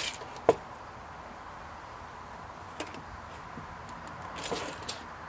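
Hand work measuring and marking a wooden fence picket. A steel tape measure gives one sharp click about half a second in and a lighter click later. A short pencil scratch and another click come near the end.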